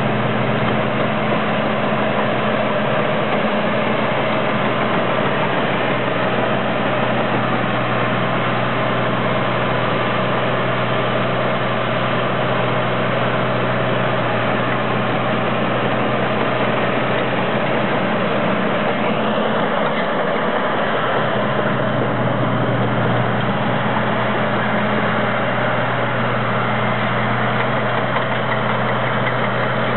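Caterpillar D5C crawler dozer's diesel engine running at a steady speed while the machine moves about. A high whine joins in about two-thirds of the way through.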